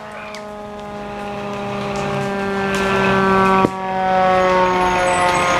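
Emergency vehicle siren sounding one held, steady tone that grows steadily louder as the vehicle draws near, with a sharp click about three and a half seconds in.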